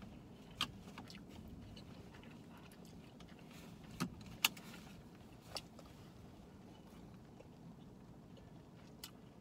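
A plastic fork clicking and scraping against a plastic takeout bowl, a handful of short sharp clicks spread out over several seconds, against a low steady rumble inside a parked car.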